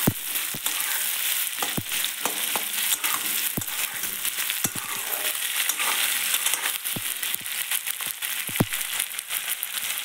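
Sliced onions sizzling as they fry in hot oil in a pan, stirred with a metal spatula that scrapes and knocks against the pan about eight times.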